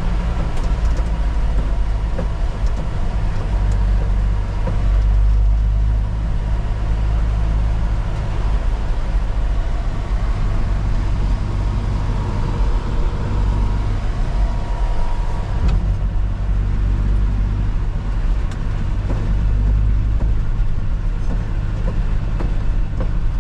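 1966 Ford F-250 pickup driving, heard from inside the cab: a steady low engine and road rumble.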